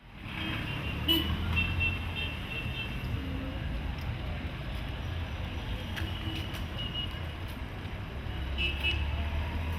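Town street traffic: vehicle engines rumbling steadily, with clusters of short, high beeping horn toots in the first few seconds, again about six seconds in and near the end.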